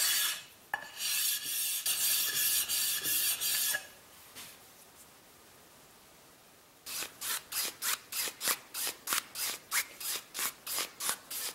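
A steel chisel scraped on 220-grit sandpaper for about three seconds. After a pause, quick even swishing strokes of the chisel on denim jeans, about three a second: stropping off the burr left by sharpening.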